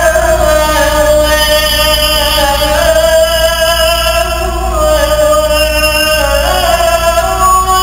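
A man's voice chanting in the Islamic style, holding long, ornamented notes that waver and step from one pitch to the next.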